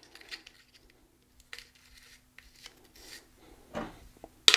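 Faint small clicks and scraping of metal parts being handled as the self-extracting cap is threaded back into the Rotor crank arm by hand, with a sharper click near the end.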